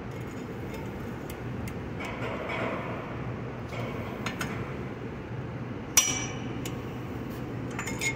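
Light metal tool clinks and taps at the front wheel hub and axle nut, with one sharp, ringing metallic clank about six seconds in, over a steady low shop hum.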